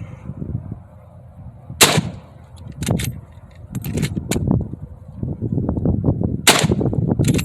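Winchester 30-30 lever-action rifle fired twice, about five seconds apart, each a single loud shot. Lighter sharp cracks and clicks come between the two shots.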